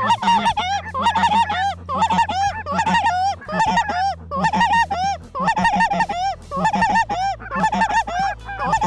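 Snow geese calling: a dense chorus of many overlapping high-pitched yelps and honks, coming in clumps about once a second, with a steady low hum underneath.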